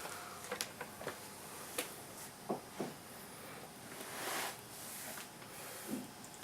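A baby's short grunting sounds and a breathy sigh, with small clicks and soft rustles as he moves about. Two quick grunts come about two and a half seconds in, the breath around four seconds, and another grunt near the end.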